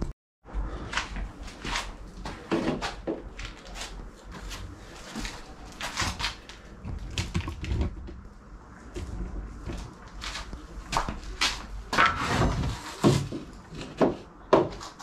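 Irregular knocks, clacks and scrapes from wooden pieces and tools being handled and set in place, some sharper and louder than others.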